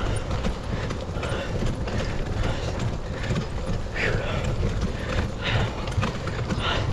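Mongoose Amplifier II mountain bike riding over a dirt trail: steady tyre rumble with a constant run of rattles and clicks from the bike over the bumps.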